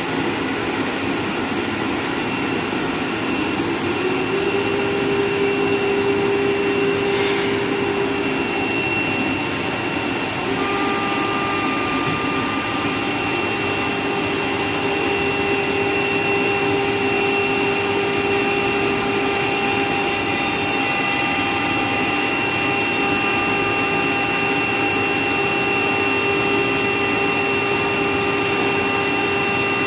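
CNC router spindle running and cutting a board: a steady high whine over a constant hiss. The pitch rises between about two and four seconds in as the spindle comes up to speed, then holds steady, and further tones join about ten seconds in.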